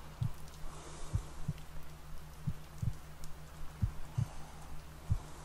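Slow heartbeat, each beat a low double thump (lub-dub), about one beat every second and a third, over a steady low hum.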